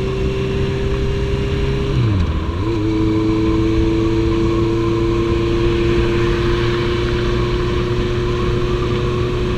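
Honda CB650F's inline-four engine running at steady cruising revs, with rushing wind noise. About two seconds in, the engine pitch briefly drops and comes back up as the throttle is eased and reopened.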